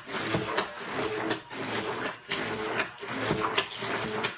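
Hand-held stick (immersion) blender running in a glass jar of thick homemade tomato ketchup, blending in added water. The motor's hum dips and comes back about once a second as the blender is worked up and down through the sauce, with a few short clicks.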